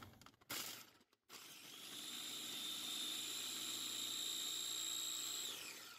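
KitchenAid electric food chopper motor spinning its blade through chunks of celery and carrot: it starts up, holds a steady high whine, then spins down with a falling whine near the end.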